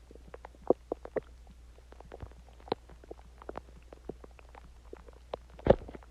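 Human stomach gurgling while digesting a meal and water: irregular short pops and squelches, with a louder, longer gurgle near the end.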